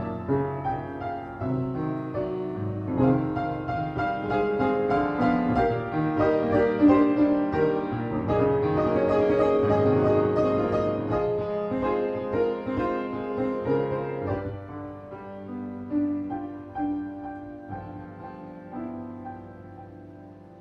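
Solo piano playing a composed classical-style piece, the notes dense and louder through the middle, then thinning out and growing quieter over the last several seconds.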